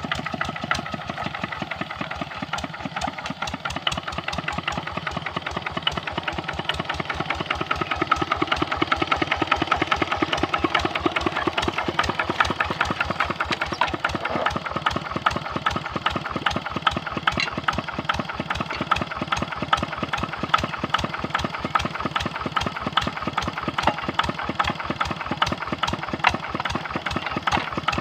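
Kubota RD65 single-cylinder diesel engine of a hand tractor running steadily, a rapid even train of firing pulses. It grows a little louder about eight seconds in.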